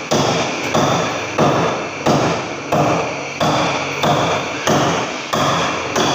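A hand-held metal tool pecking a plastered wall by hand, one sharp blow about every two-thirds of a second, each followed by a short ringing echo. This is the wall surface being chipped and pocked without a power tool.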